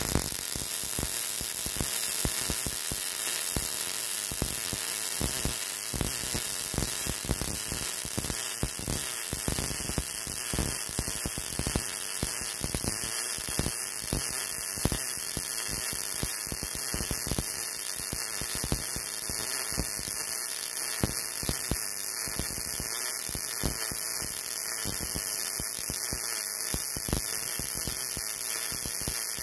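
MIG welding arc from a Yeswelder DP200 running one long, unbroken bead on thick steel plate: a steady crackle and hiss with fine spatter clicks.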